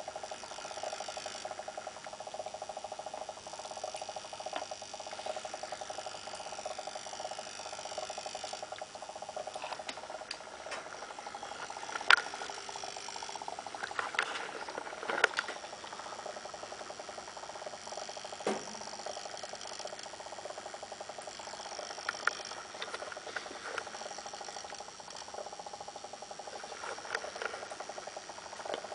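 HHO electrolysis cell giving off a steady buzzing hum, with a few sharp clicks in the middle. The maker suspects the sound is a resonance in the cell.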